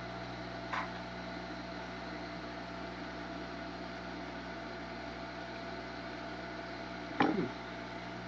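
Steady electrical hum with a mains buzz and a low whir under it. A short tick comes about a second in, and a louder knock near the end.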